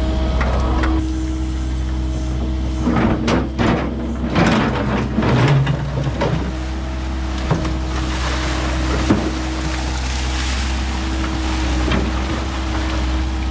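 Kubota KX080 excavator running, its diesel engine steady under a constant hydraulic whine. The bucket works concrete rubble and dirt, with a cluster of crunches and knocks about three to six seconds in.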